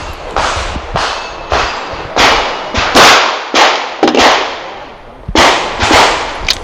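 Springfield Armory EMP semi-automatic pistol firing a string of shots in quick succession, about one every half second, each crack followed by a short echo, with a brief pause about two-thirds of the way through before the last few shots.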